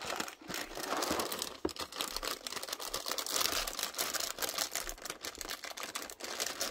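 Clear plastic inner liner of a cereal box crinkling and crackling as hands tug at it to pull it open. It is a hard bag to open.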